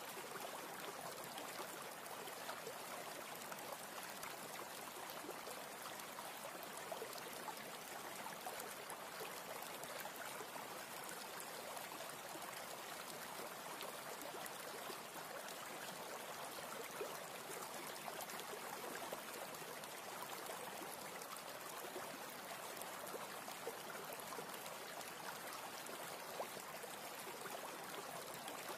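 Steady, even hiss with faint fine crackling, like running water, unchanging in level throughout.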